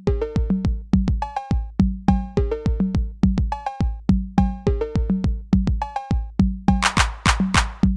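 Electronic background music: a fast drum-machine beat with heavy low kicks under a stepping synthesizer line. Bright cymbal-like strikes come in about seven seconds in.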